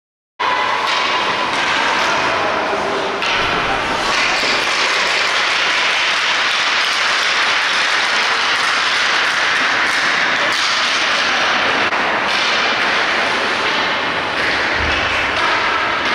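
Ice hockey rink sound: a steady hiss of skates on the ice with scattered knocks of sticks and puck. It starts abruptly about half a second in.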